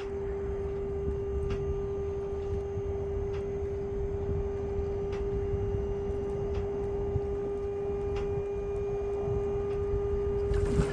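Miska 5-ton dump trailer's electric hydraulic pump running with a steady, even hum while it raises the bed, with a few faint ticks over a low rumble.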